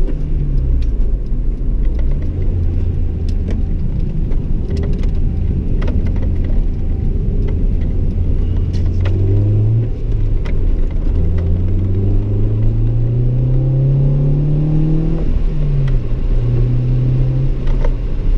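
Honda Integra Type R's 1.8-litre four-cylinder VTEC engine pulling under acceleration, its pitch climbing steadily for several seconds, then dropping suddenly at a gear change about three seconds before the end and holding steady after.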